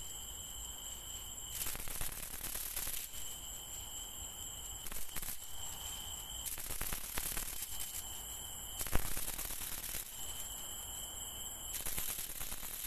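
Bamboo-strip rat lure (ตอก) shaken in repeated harsh bursts of about a second each, a buzzing call meant to draw rats in, over a steady high insect trill. A single sharp crack about nine seconds in.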